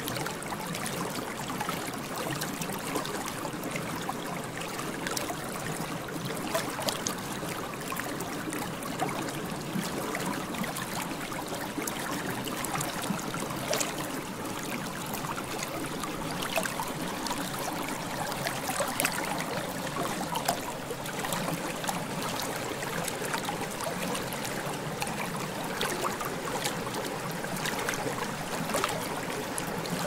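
Running water of a small stream, trickling and gurgling steadily, with many tiny splashes.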